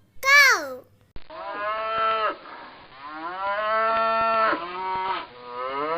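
Cow mooing: about three long, drawn-out moos, each rising in pitch and then holding.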